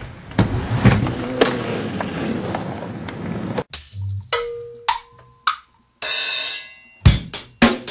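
Skateboard wheels rolling on a wooden ramp, with a few sharp clacks of the board. It cuts off suddenly; a few short electronic tones and swishes follow, and a drum-kit beat starts near the end.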